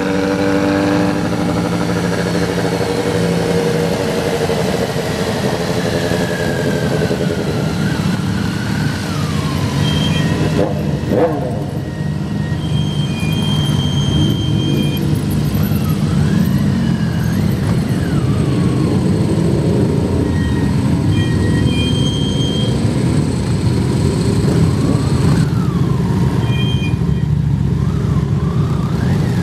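A pack of motorcycles running at low parade pace, the nearest a 1988 BMW K75 three-cylinder; the engine notes rise and fall in pitch now and then as riders open and close the throttle.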